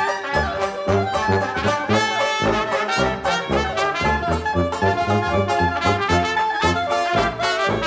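Traditional jazz band playing an instrumental passage: trumpet, trombone and clarinet lines over a sousaphone bass on the beat and a strummed tenor banjo.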